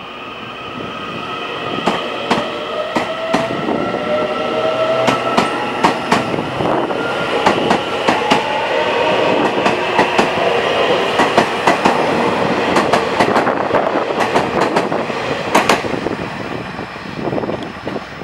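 Taiwan Railways EMU800 electric commuter train pulling away past the platform. Its traction motors whine in tones that rise in pitch as it picks up speed, and the wheels clack sharply over the rail joints. The sound builds and then fades near the end.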